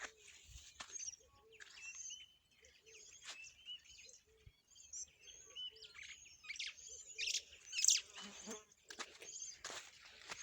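Birds chirping and calling: many short, high chirps all through, with a few short crunching sounds of someone moving through dry vegetation, the loudest about eight seconds in.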